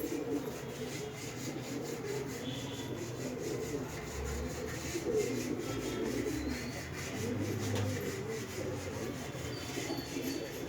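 Pigeons cooing continuously in low, rolling calls, with a few faint high chirps from small birds.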